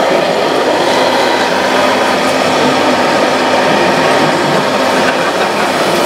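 Radio-controlled model tipper truck driving over sand, its electric drive and gearbox running with a steady, even mechanical whirr.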